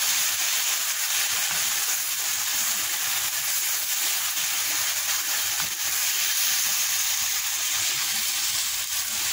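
Soaked maash (urad) dal frying in hot oil and tomato masala in a non-stick wok, a steady sizzle as it is stirred with a spatula.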